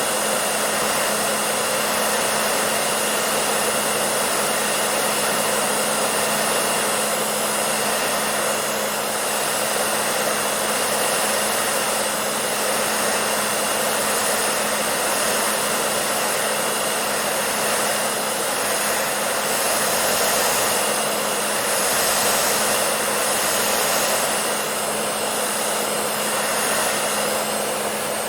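Hair dryer running steadily: an even rush of blown air over a constant motor hum.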